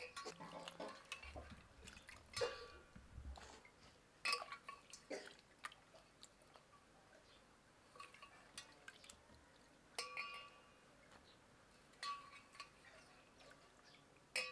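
Hands washing lasoda (gunda) fruits in a steel pot of water: soft splashing and dripping, with scattered sharp knocks against the steel pot, several of which ring briefly.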